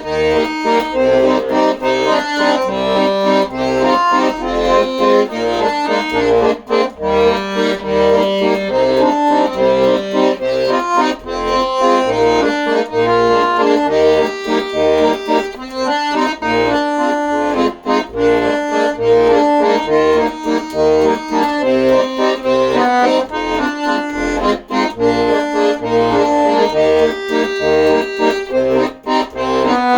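Accordion playing an instrumental tune: a melody over held chords, with regular bass notes pulsing underneath.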